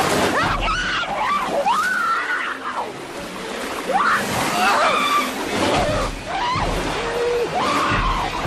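A woman's screams and gurgly cries in a series of rising and falling wails, over water splashing and sloshing: a swimmer thrashing as a shark attacks her.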